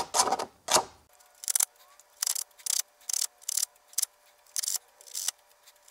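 Small metal contact from a Mercedes power seat switch being rubbed by hand on a sheet of sandpaper: short scratchy strokes, about two a second, cleaning the contact pads.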